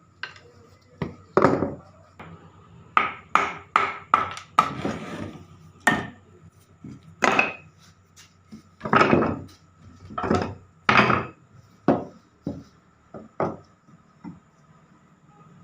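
An irregular series of wooden knocks and bangs from hand work on a wooden table, some sharp and some longer, like scrapes or rubs, roughly one or two a second, over a faint steady hum.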